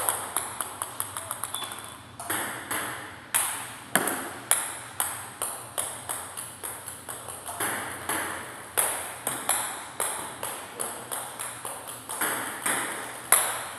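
Table tennis ball repeatedly clicking off paddle and table in a practice drill, about two sharp hits a second. About a second in comes a quick run of closer and closer clicks: a loose ball bouncing to rest.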